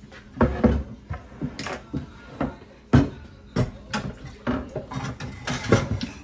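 Irregular knocks and clatter of kitchenware being handled at the counter and sink during cleanup, including a wooden cutting board, with the sharpest knock about three seconds in.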